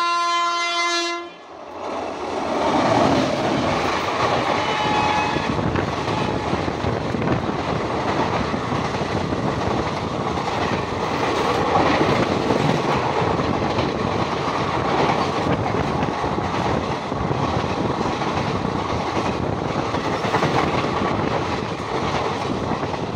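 Multi-tone train horn sounding, cutting off about a second in. Then the loud, steady rush and rumble of passenger coaches passing close by on the next track, with wheel clatter, heard from a train window.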